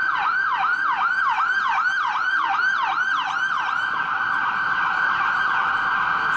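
Emergency vehicle siren going past on a city street, in a yelp of about three falling sweeps a second that switches to a much faster warble about halfway through.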